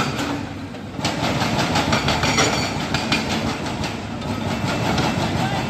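Excavator-mounted hydraulic breaker hammering in a fast, steady train of blows over the running diesel engine, easing briefly under a second in before picking up again.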